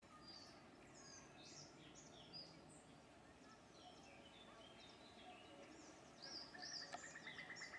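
Faint birdsong: several small birds chirping and whistling in short high phrases, with a fast, even trill joining about six seconds in.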